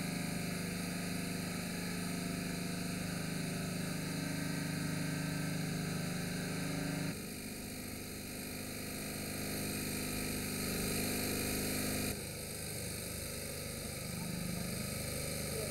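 Portable pump set running steadily with an engine-like hum while pumping floodwater out of a flooded building. The hum changes abruptly and drops slightly about seven seconds in, and changes again about twelve seconds in.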